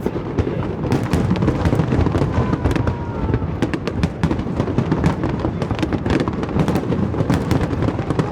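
Aerial fireworks going off in a dense, continuous barrage: overlapping booms and sharp cracks with no pause.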